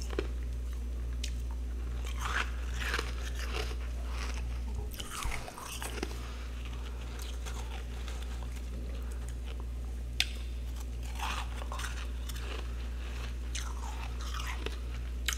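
Crunching of freezer frost: scattered crisp crunches every second or two, over a steady low hum.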